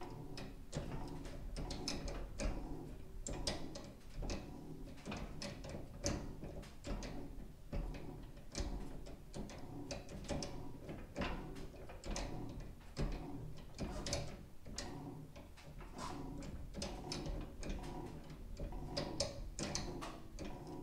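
Mocked-up steering shaft and universal joints clicking and clunking irregularly as the steering is turned, about two knocks a second. The joints are only tacked and nothing is tightened yet.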